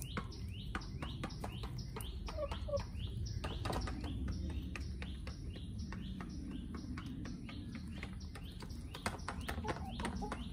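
A fast, steady series of high chirps falling in pitch, about three a second, from a small bird. Under them, scattered sharp taps of chickens pecking at a feeder dish.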